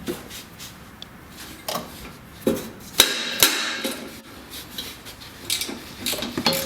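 Irregular metallic clicks, clinks and knocks of hand tools working on bolts as they are undone. The loudest is a sharp metal clank about three seconds in that rings briefly.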